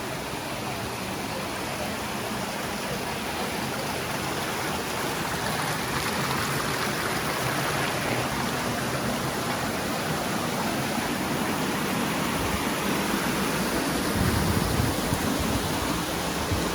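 Steady rush of a flood-swollen creek, fast-flowing water running continuously and growing a little louder across the stretch.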